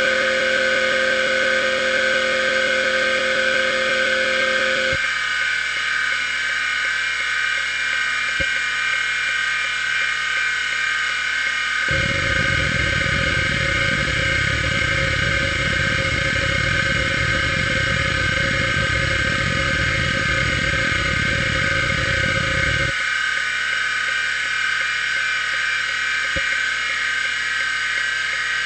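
Maxtor XT-8380S full-height 5.25-inch SCSI hard drive running under a seek benchmark, with a steady high whine throughout. Its heads make an even buzz of rapid seeks for the first five seconds, then only occasional ticks, then a dense rattling chatter of seeks from about twelve seconds to about twenty-three, then scattered ticks again.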